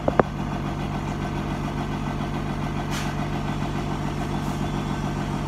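An engine idling steadily: a low, even hum with a fast low pulse. A short, sharp knock sounds just after the start.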